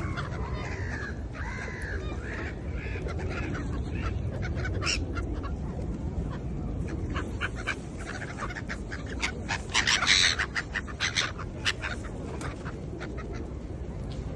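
Birds calling: a run of short arched calls in the first few seconds, then scattered short clicks and a louder cluster of sound about ten seconds in, over steady low background noise.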